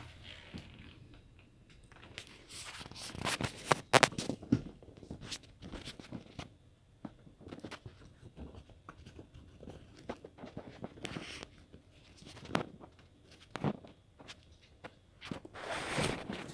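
Handling noise of a phone camera being moved about and set down: scattered rustles, scrapes and knocks, with a cluster of sharper knocks about three to four seconds in and a longer rustle near the end.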